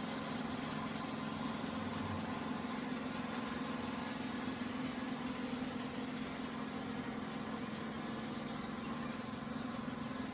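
Steady low hum of locomotive machinery with a fainter, higher steady tone above it; the pitch does not rise or fall.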